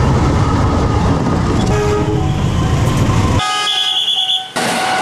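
A CC 201 diesel-electric locomotive rumbling past, with a short horn note about two seconds in. A little over three seconds in, the rumble cuts off and a train horn sounds a steady chord for about a second over a fast, high ringing.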